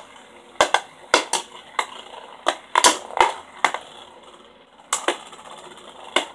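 Two Beyblade spinning tops whirring in a clear plastic drawer, clashing against each other and the plastic walls with about a dozen sharp clacks, in quick clusters through the first four seconds and again near the end.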